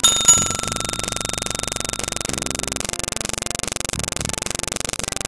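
Subscribe-button animation sound effects: a click and a notification-bell ding that rings out and fades over about two seconds, over a steady, fast, pulsing electrical buzz.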